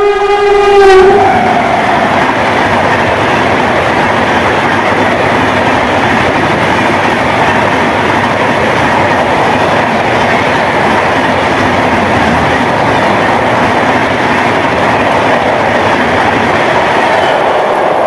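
Rajdhani Express locomotive's two-tone horn ending about a second in, its pitch falling as it passes, then the train's coaches rushing past at speed with a loud, steady roar of wheels on rail.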